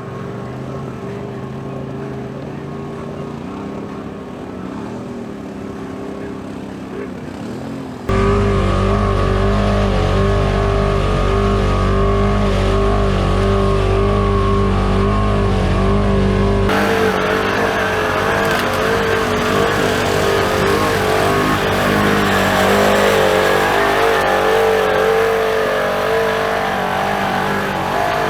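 Side-by-side UTV engine running at a steady pitch. The sound jumps abruptly louder about eight seconds in and shifts again about seventeen seconds in, with more high hiss.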